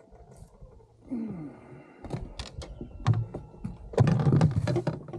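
Quick clicks and knocks of a fishing rod and landing net being handled on a kayak as a bass is netted, busiest and loudest near the end.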